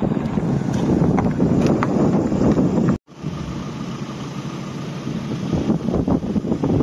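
A dark BMW 5 Series saloon driving past close by on a wet road: engine and tyre noise, with wind buffeting the microphone. About three seconds in, the sound cuts off abruptly, and a quieter steady rumble follows.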